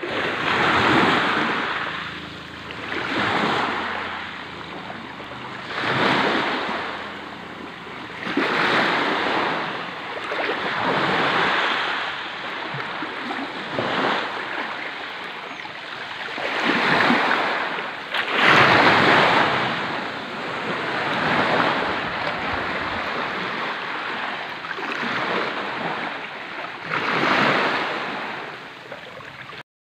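Small waves washing in over a pebble beach, the rush of water swelling and fading about every two to three seconds.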